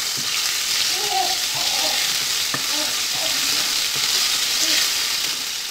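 Ginger-garlic paste sizzling in hot oil in a nonstick pan as a spatula stirs and scrapes it, a steady frying hiss.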